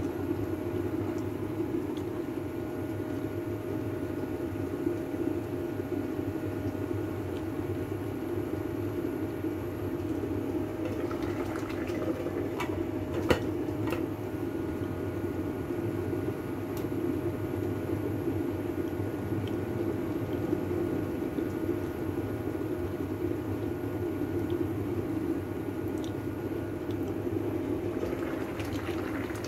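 A pot of water boiling steadily with vermicelli noodles cooking in it, the noodles not yet done. A faint steady hum runs underneath, and there are a couple of light clicks about 13 seconds in.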